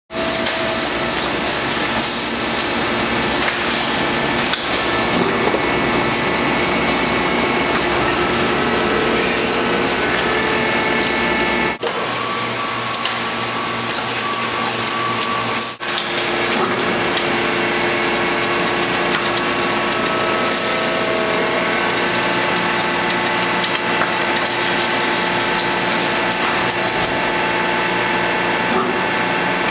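Vinyl record pressing machine running: steady mechanical noise with constant humming tones, dipping briefly twice.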